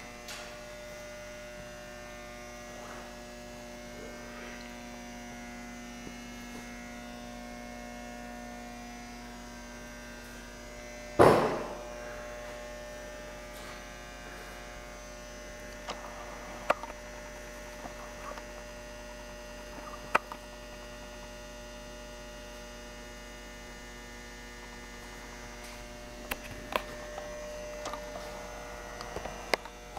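Steady electrical hum made of several constant tones, broken by one loud thump about eleven seconds in and a few light clicks in the second half.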